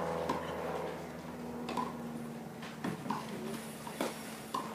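Tennis rally on a clay court: a tennis ball struck by racket strings and bouncing, with a sharp pock about every second.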